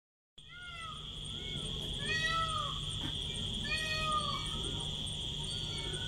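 Steady high-pitched insect drone with a low hum beneath, and two short runs of animal calls, each rising then falling in pitch, about two and four seconds in. The sound cuts in just after the start.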